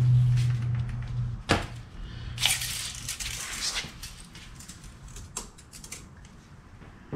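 Steel tape measure being pulled out and handled for a measurement: a sharp knock, then a rasping rattle lasting a second or so, then a few light clicks. A steady low hum stops about a second and a half in.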